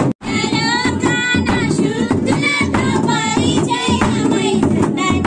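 A song: a high voice singing with a wavering, vibrato-like pitch over continuous music. It starts after a momentary dropout right at the beginning.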